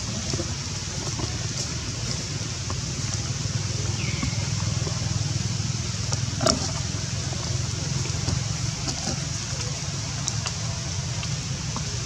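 Steady outdoor background noise, a low rumble under a high hiss, with one sharp click about six and a half seconds in.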